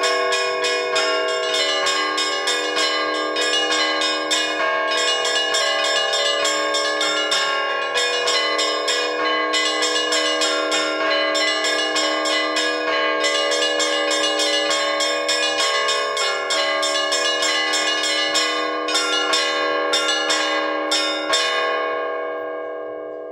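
Orthodox church bells rung by hand in a fast, even peal of small bells over the ringing hum of larger bells: the zvon calling to vespers and the all-night vigil. The strikes stop near the end and the bells ring away.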